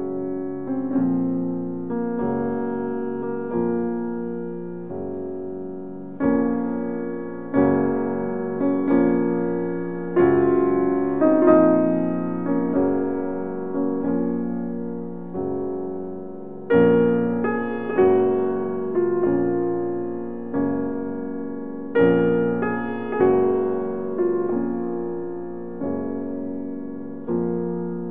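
Slow solo piano music: chords struck about every second and a half, each one ringing and fading before the next.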